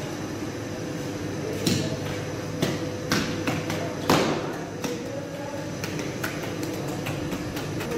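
Hands slapping and patting sangak dough onto a bread peel: a series of sharp, irregular slaps and thuds, thickening into quicker light taps near the end, over a steady background hum.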